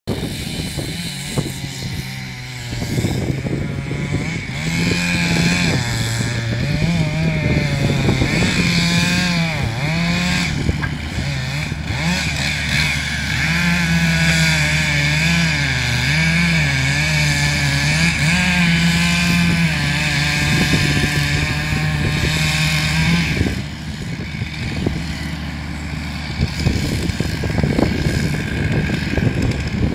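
Stihl MS 661 C two-stroke chainsaw with a 60 cm bar cutting into a large tree at full throttle, its pitch dipping and recovering again and again as the chain loads in the wood. The saw drops off about three quarters of the way through. A diesel forwarder engine runs steadily underneath.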